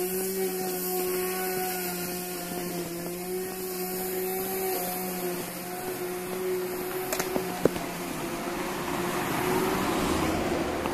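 A steady mechanical hum at a fixed pitch, like a small motor running, fades out about eight seconds in. A car then approaches along the street, its tyre and engine noise growing louder toward the end. Two short sharp clicks come a little after seven seconds.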